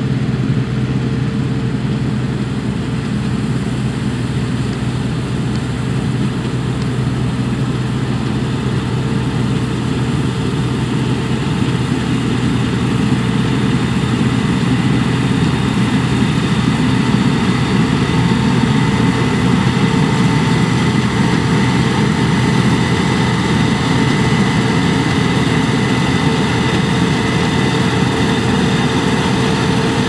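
Claas Lexion 760 combine harvester running under load while cutting barley: a steady engine drone mixed with the noise of the header and threshing machinery, growing slightly louder as it draws nearer. A thin high whine joins about halfway through.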